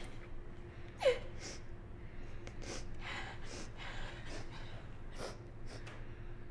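A woman sobbing: a short falling cry about a second in, then a string of gasping, sniffling breaths.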